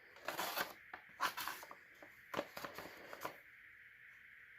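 Dull knife edge being forced through a sheet of paper: a handful of short rasping, tearing strokes over about the first three seconds, then quiet. The blunt, rolled edge catches and tears the paper instead of slicing it cleanly.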